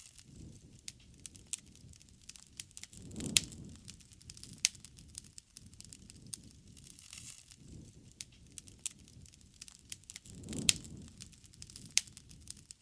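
Wood campfire crackling, with irregular sharp pops of burning wood over a low rush of flame. The rush swells twice, about three seconds in and again near ten and a half seconds, when the loudest pops come.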